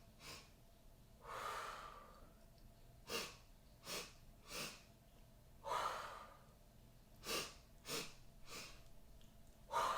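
A woman doing bunny breaths: three quick sniffs in through the nose, then a longer blow out through the mouth, repeated. An exhale comes about a second in, a set of three sniffs and an exhale follows, and another set of three sniffs and an exhale comes near the end.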